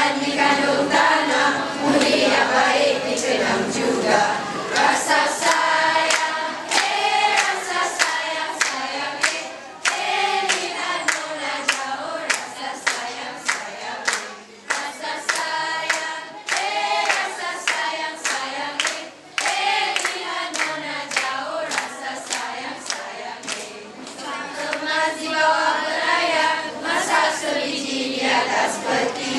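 A group of school students singing together from lyric sheets, mostly girls' voices, with hands clapping along.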